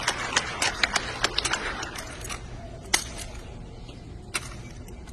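Hands slapping and catching a drill rifle as it is spun and tossed: a quick run of sharp clacks over the first couple of seconds, then a single loud catch about three seconds in and another near the end.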